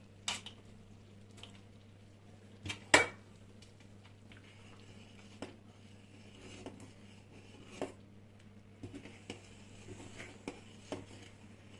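A wooden spoon stirring soup in a stainless steel pot, with scattered knocks and clinks against the pot. The loudest is a sharp double knock about three seconds in. A steady low hum runs underneath.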